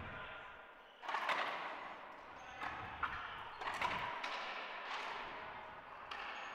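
A racquetball being bounced and then struck on a serve: several sharp smacks of ball on floor, racquet and wall, each ringing on in the echo of the enclosed court.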